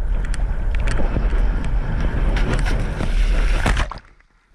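Heavy wind buffeting on an action camera's microphone, with splashing water on a foil board, cutting off abruptly about four seconds in.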